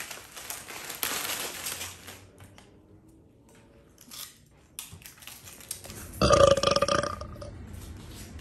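A person belching loudly for about a second and a half, about six seconds in. Before it, in the first two seconds, comes crunching and crinkling from eating baked potato chips out of the bag.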